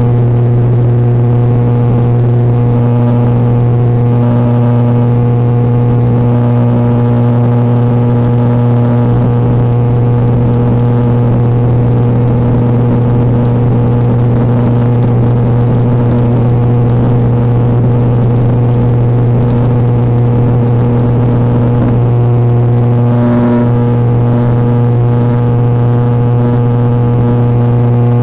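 Propeller drone of an ATR 72-600 turboprop airliner heard inside the cabin: a loud, steady low hum with a stack of higher steady tones above it.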